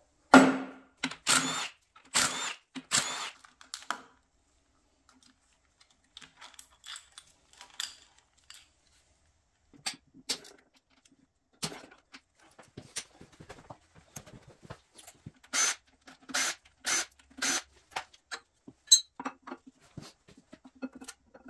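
Loose metal debris rattling inside a shaken part from a blown LS7 V8, a handful of quick shakes over the first four seconds. Then scattered metal clinks and clicks as engine parts are handled and the camshaft is worked out of the block.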